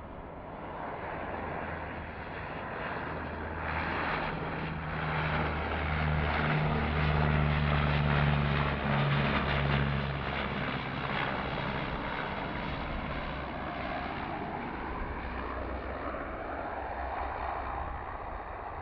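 De Havilland Canada Dash 8-300 twin turboprop on final approach, passing close: a steady low propeller drone under the rushing noise of the engines, building to its loudest about eight seconds in, then easing off as the plane moves away toward the runway.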